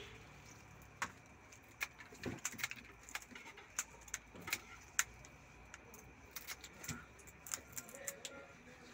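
Scissors snipping through the shells and feelers of big river prawns during cleaning: irregular sharp metallic clicks, roughly one or two a second.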